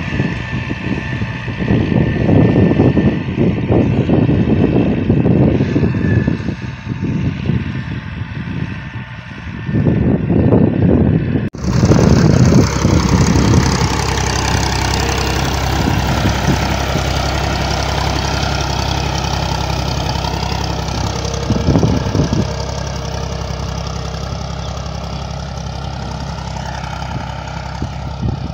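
Valmet 65 tractor's diesel engine running as it pulls a three-disc plough through soil. For the first dozen seconds, wind buffets the microphone. After a sudden cut, the engine runs steadily and closer.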